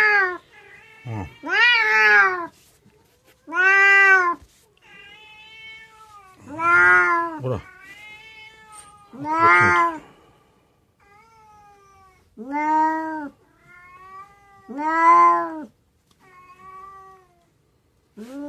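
Agitated cat restrained in a mesh net, yowling over and over: about seven loud, drawn-out cries that rise and fall in pitch, one every two to three seconds, with fainter meows between them.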